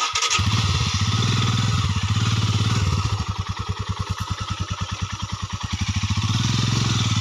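Royal Enfield Himalayan's single-cylinder engine running at low revs, with a steady beat of firing pulses that swells slightly twice.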